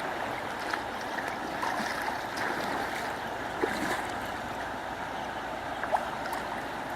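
Water running steadily, with small splashes here and there.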